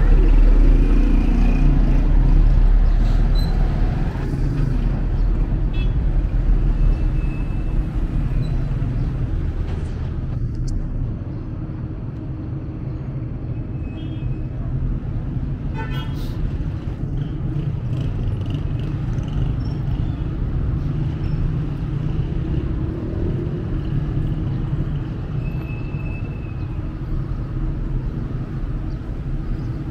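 Road traffic on a city street: motor vehicles running past in a steady rumble, louder for the first several seconds as a vehicle goes by close.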